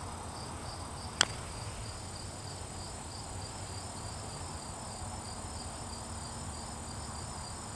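A single sharp click about a second in, a putter striking a golf ball for a long lag putt, over steady high-pitched insect chirring.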